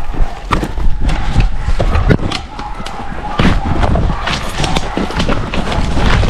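Running footsteps crashing through forest undergrowth and leaf litter: irregular heavy thuds and rustling, with knocks and a low rumble from the jostled body-worn camera.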